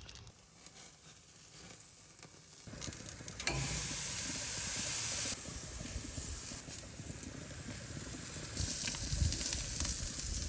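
Burger patties sizzling on a grill, starting about three seconds in, with two louder spells of hissing, one partway through and one near the end.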